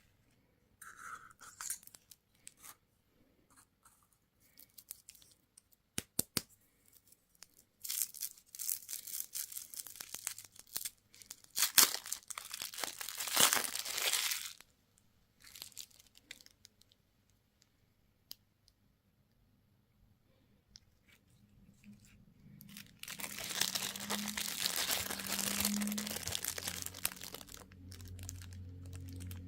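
Candy and toy packaging being torn open and crinkled by hand, in two long spells of tearing and rustling, with short clicks and taps between them.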